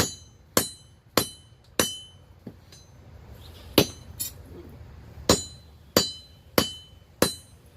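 Hand hammer striking a hot mild-steel block on an anvil, about ten blows, each with a short metallic ring. Four blows come about every half second and a bit. After a pause of a second or so, four more follow near the end.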